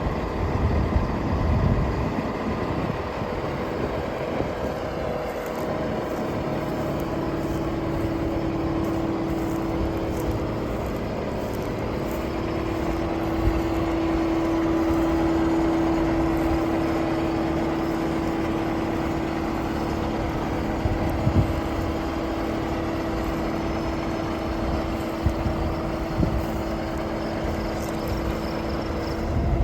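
Heavy harvest machinery running steadily. A steady hum comes in about six seconds in and is strongest through the middle.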